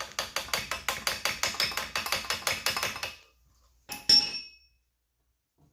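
A tool tapping rapidly and evenly on the metal float bowl of a 1996 Honda XR100R carburetor, about six or seven taps a second, stopping about three seconds in. About four seconds in comes one sharper metallic clink with a short ring.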